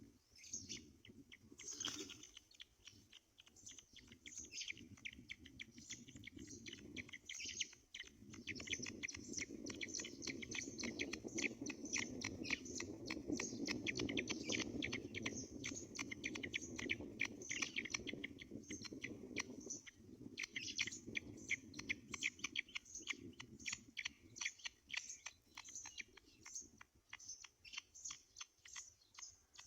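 Rapid, high-pitched chittering calls from birds at a nest, many short ticks in quick succession, with a low rushing noise for about ten seconds in the middle.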